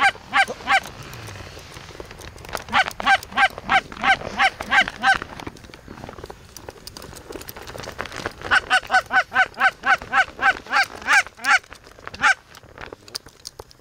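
Rapid goose honks, about four a second, in three runs: a short one at the start, a longer one from about three seconds in, and another from about eight seconds in.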